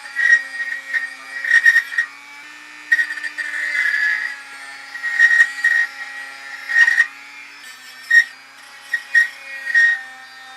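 A hand file scraping in short, uneven strokes across the steel of a small knife blade, shaping it to a curve, with a bright metallic ring on each stroke. A steady machine hum runs underneath.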